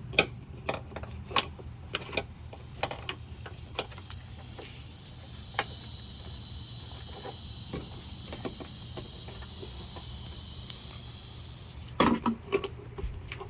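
Small plastic clicks and knocks from a door lock wiring connector and harness being handled at the van door. A steady high-pitched buzz starts about four seconds in and stops suddenly near the end, followed by a quick cluster of louder clicks.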